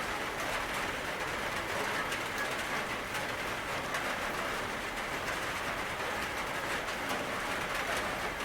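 Steady rain falling, a dense even hiss scattered with many small drop ticks.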